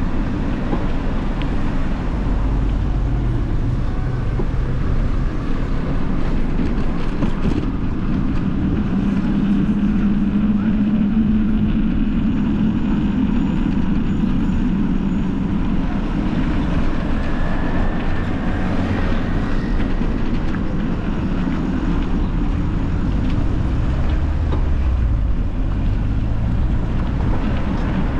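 Steady low rumble of wind on the camera microphone while riding along a street, mixed with the noise of street traffic.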